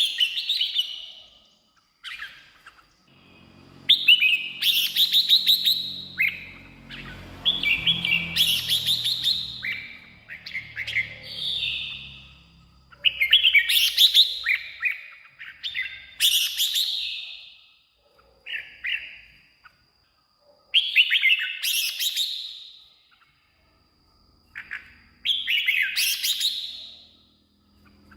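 Red-whiskered bulbul singing: short, loud, warbling phrases repeated every second or two, with brief pauses between them.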